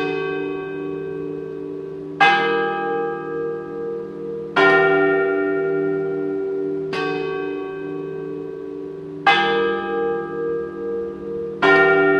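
A large bell tolling slowly. Each stroke comes about every two and a half seconds and rings on into the next, over a low hum that pulses.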